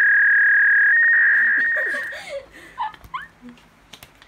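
Steady electronic tone, the sound effect of a channel-intro logo animation, held for about two seconds with a small step in pitch about a second in, then fading out.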